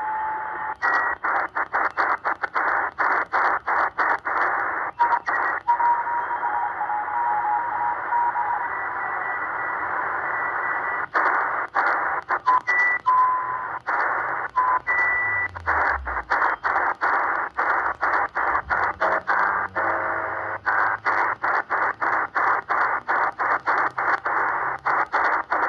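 XHDATA D-808 portable shortwave receiver in SSB mode being tuned across the 40-metre amateur band. A steady hiss of band noise is broken by a brief mute and click at each tuning step, about three a second in quick runs, while short whistles of station signals pass through at changing pitches.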